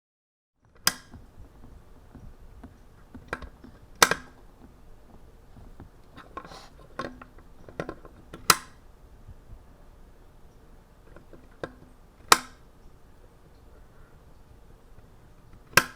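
Lamp switch clicking on and off, about five sharp loud clicks a few seconds apart with softer clicks and small handling knocks between them.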